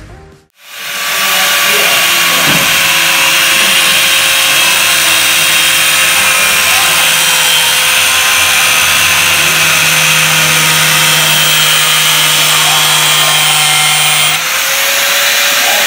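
Electric angle grinder running steadily with its cutting disc cutting into a plastic pipe, starting about a second in after a brief silence. Its tone shifts slightly near the end.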